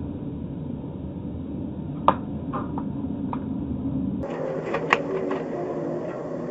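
Steady road and engine noise inside a moving car, picked up by a dashcam, with a handful of sharp clicks or knocks. The loudest click comes about two seconds in, and another strong one about five seconds in.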